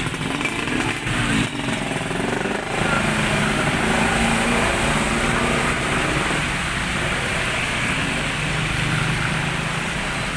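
Motorcycle engine running, its pitch rising and falling in the first few seconds and then holding steadier, over a steady rushing noise.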